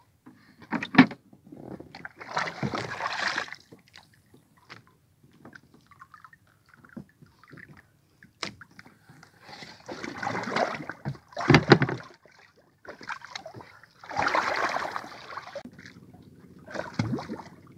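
Water splashing and sloshing at a small wooden outrigger canoe, in several surges about a second long, with a few sharp knocks against the hull.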